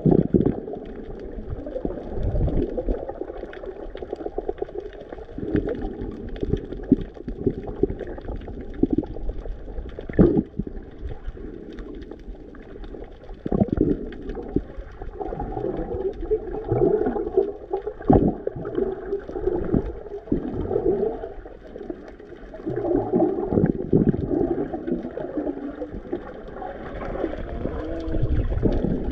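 Muffled water heard through a submerged action camera: sloshing and gurgling bubbles, with a few sharp knocks scattered through.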